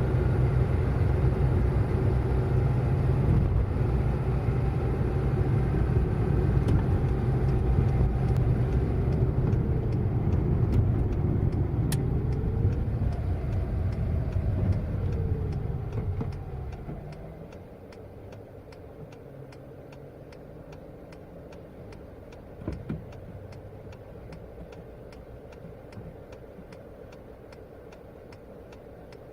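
Car driving: steady low engine and road rumble, with the engine note sagging briefly near the middle, then dying away a little over halfway through to a quieter steady hum. Faint regular ticking sounds through the second half.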